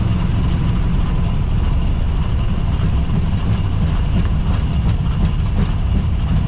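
Airbus A320 landing rollout heard inside the cockpit: a loud, steady low rumble of the wheels on the wet runway and the engines as the aircraft decelerates, with a few faint knocks and a thin steady whine above it.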